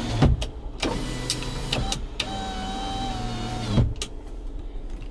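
2015 Jeep Wrangler Unlimited power window motor running for about three seconds, started and stopped by clicks of the center-stack window switch, with a knock as it stops.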